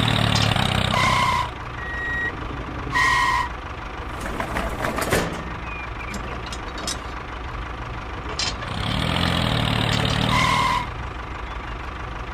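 Truck engine sound running, louder in the first second and a half and again around nine to eleven seconds in. Short two-tone beeps come three times, about a second, three seconds and ten and a half seconds in, with a few clicks between them.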